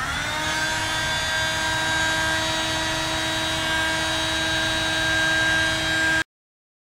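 Electric heat gun switched on at its highest setting: its fan spins up with a brief rising whine, then runs steadily with a whine and a rush of air as it blows hot air onto a circuit board to melt the solder. The sound cuts off suddenly near the end.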